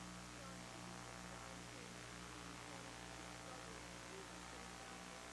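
Dead audio on a failed live broadcast feed: only a faint, steady electrical hum with hiss, and no voice from the reporter coming through.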